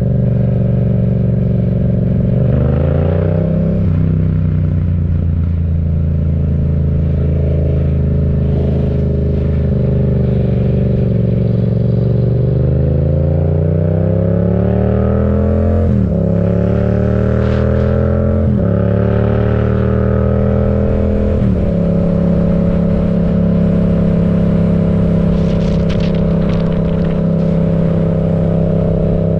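Yamaha MT-07's parallel-twin engine through an aftermarket M4 exhaust while riding. It runs steadily at first, then pulls hard from about twelve seconds in, its pitch climbing and falling away at three quick upshifts, and settles into an even cruise for the rest.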